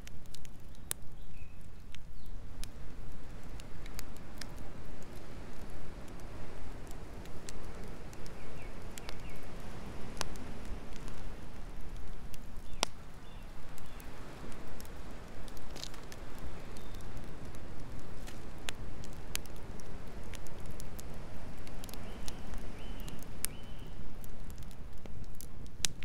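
Wood campfire crackling, with sharp pops at irregular moments over a low, steady rushing noise.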